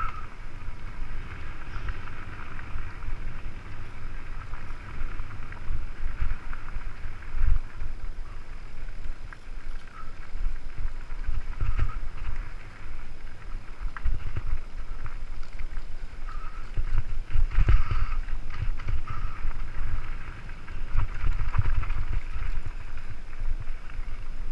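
Mountain bike descending a rough, rocky dirt singletrack, the bike and camera rattling and jolting over stones in irregular knocks, with wind across the microphone.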